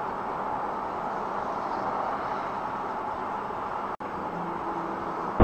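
Steady road and traffic noise picked up by a car's dashcam microphone inside the cabin, an even hum with no distinct events, with a very brief dropout about four seconds in.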